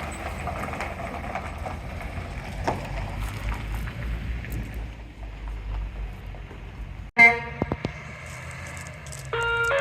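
Low, steady rumble of a diesel engine running for about seven seconds, then a sudden cut to a short, loud tone with a few clicks, and music starting near the end.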